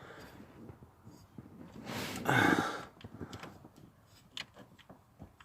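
A man's heavy, breathy sigh about two seconds in, followed by a few faint clicks and taps.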